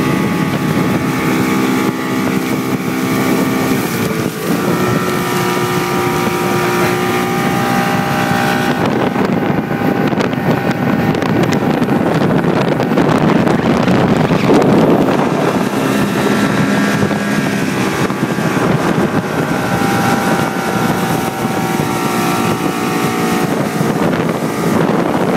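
Mercury 115 outboard motor running at speed, its engine note shifting in pitch several times, over the rush of the boat's wake and wind on the microphone.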